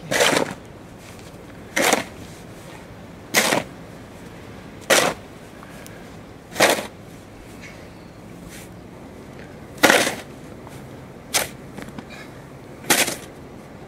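Snow shovel scraping and digging into packed snow in short, sharp strokes, about eight of them, roughly one every second and a half.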